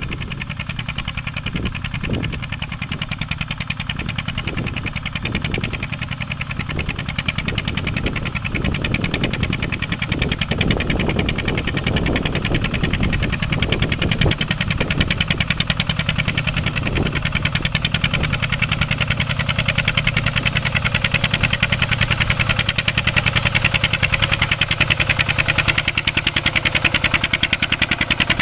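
Mini farm tractor engine running steadily while plowing, with an even rapid beat that grows louder over the second half.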